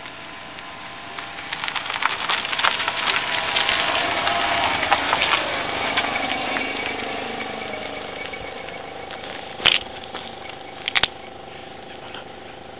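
A Renault people carrier converted to electric drive, with a Golden Motor 72 V brushless DC motor, driving past close by: tyre noise on asphalt swells as it nears and fades as it goes, with a thin electric-motor whine that falls in pitch as it passes. Two short, sharp noises come near the end.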